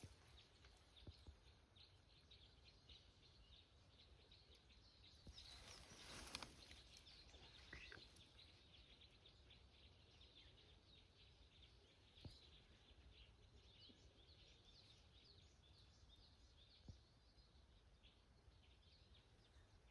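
Near silence: faint outdoor ambience with scattered distant bird chirps, a brief rustle about five to six seconds in, and a couple of small clicks.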